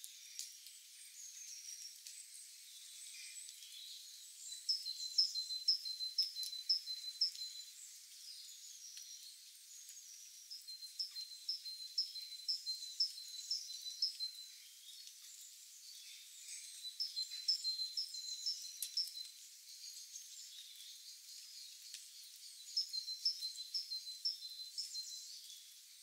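A small songbird singing a repeated phrase of evenly spaced high notes, about three a second, each phrase lasting two to three seconds and coming back about every six seconds, four times. Fainter chirps from other birds sit between the phrases over a faint high hiss.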